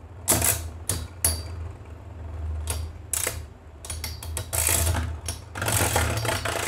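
Two Metal Fight Beyblades, Lightning L-Drago and Sagittario, spinning against each other in a plastic stadium. Their metal wheels click and clack in irregular collisions, which come thicker over the second half, above a steady low whir.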